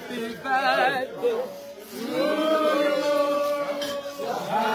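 Voices singing or chanting: a wavering high phrase about half a second in, then a long held note from about two seconds in to just past four seconds.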